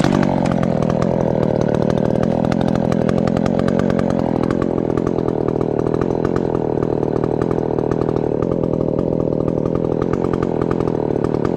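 Ported Husqvarna 372XP two-stroke chainsaw held at full throttle, cutting into a grand fir to fell it. It runs loud and steady throughout.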